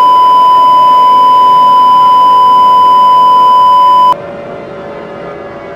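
A loud, steady electronic beep of the kind used as an emergency-broadcast alert tone. It cuts off abruptly about four seconds in, leaving a quieter low drone that runs underneath throughout.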